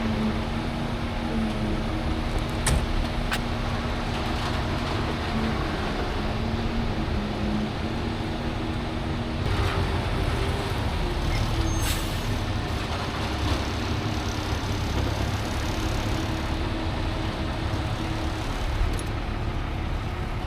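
Concrete truck's diesel engine running steadily, its note shifting slightly about halfway through, with a few sharp clicks near the start.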